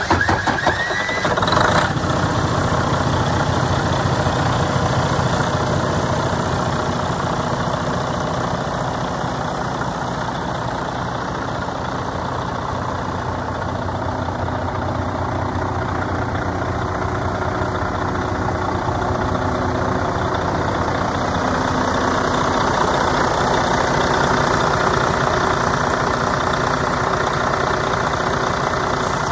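The diesel engine of a 2016 Freightliner Cascadia truck tractor catches as it starts, with a brief rising whine in the first two seconds, then idles steadily. A thin high whistle comes in about halfway through.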